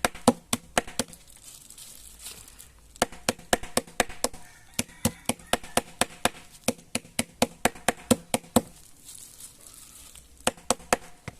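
Pimento (allspice) seeds being pounded fine: quick, sharp strikes, about three to four a second, in three runs with short pauses between them.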